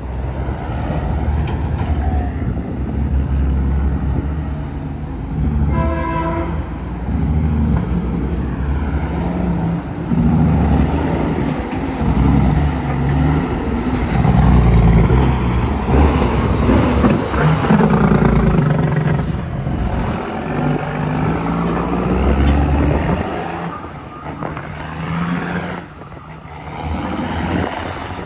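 Heavy diesel trucks driving past, their engines running loud and swelling as each comes by, with cars passing among them. A short horn toot about six seconds in.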